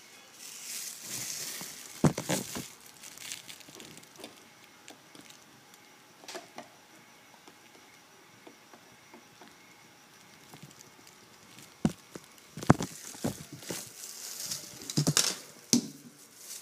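Handling of plastic water-filter parts: intermittent crinkling rustle with a few sharp clicks and knocks, the loudest of them about 2 s in and around 12 to 15 s in.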